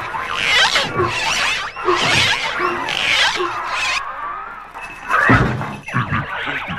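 Cartoon slapstick sound effects: a run of squeaky, gliding stretch-and-twist noises as a rubbery character is wrung and bent, then a heavy thud about five seconds in.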